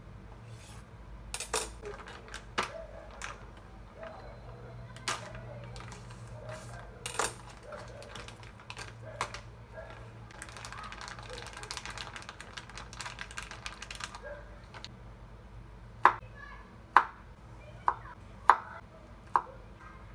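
Kitchen knife tapping and cutting on a wooden cutting board in a few scattered knocks, then plastic packaging crinkling as a packet is torn open. Near the end come five sharp knife chops onto the wooden board, the loudest sounds.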